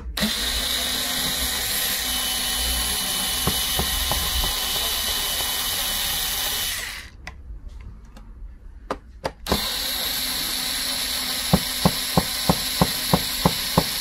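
Cordless electric screwdriver running, backing out the Phillips screws on the base of a mini PC. The motor runs steadily for about seven seconds, stops for a couple of seconds with a few light clicks, then runs again with regular clicking about three times a second near the end.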